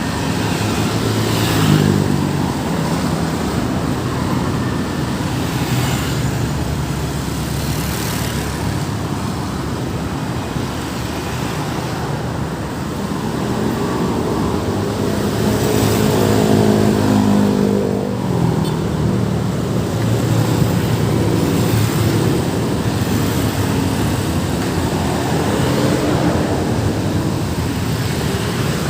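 Road traffic passing by, with vehicle engines running. About halfway through, one engine accelerates past, rising in pitch.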